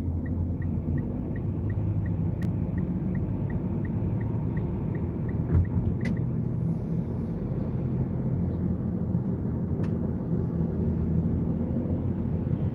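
Road and engine rumble inside a moving car's cabin. Over it, a turn-signal indicator ticks about three times a second and stops about five seconds in.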